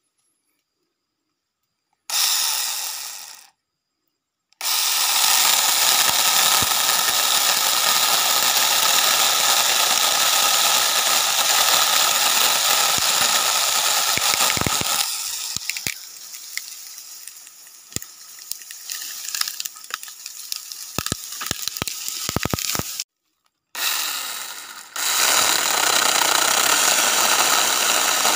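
A 21-volt cordless mini chainsaw running with a steady whine as it cuts into a small tree trunk. The first short trigger pull winds down, then the saw is held on for long stretches. In the middle the sound drops and crackles, then it cuts off suddenly and starts again near the end.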